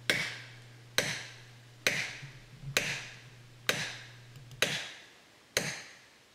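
A felling wedge being pounded into the back cut of a tree: seven sharp knocks, about one a second, each with a short ringing decay. The blows drive the wedge in to lift a back-leaning tree and tip it over against its lean.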